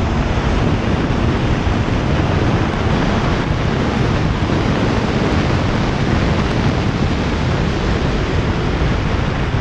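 Steady wind noise rushing over a motorcycle rider's helmet-mounted microphone at around 135 km/h. It is an even, unbroken noise with no clear engine note standing out.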